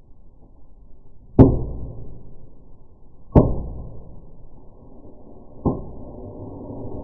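Fireplace fireworks going off: three sharp bangs about two seconds apart, each followed by a rushing noise, then a steady hiss that slowly grows.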